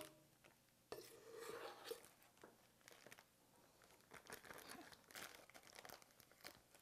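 Faint crinkling of a plastic Ziploc bag with soft scrapes and taps of a spoon as thick mousse is spooned into it, a little louder about a second in.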